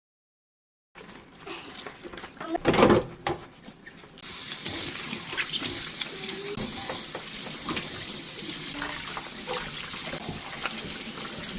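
Scattered handling knocks, one loud clatter about three seconds in, then a faucet running steadily into a sink from about four seconds in.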